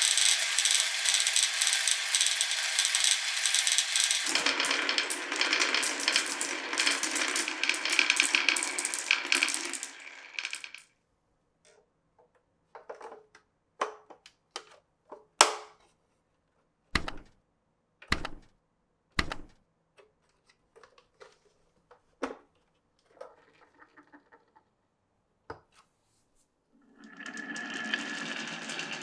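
Glass marbles rolling and clattering down a wooden marble run: a dense rattle of many marbles on the track for about ten seconds, then single sharp clicks and knocks as marbles drop and strike the pieces, and steady rolling starts again near the end.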